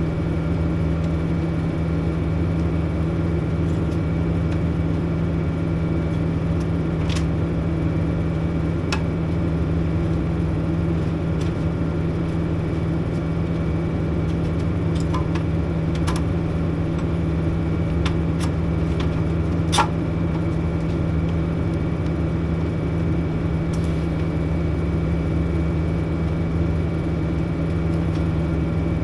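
Steady electrical hum of a TIG welding setup running, with a few faint clicks.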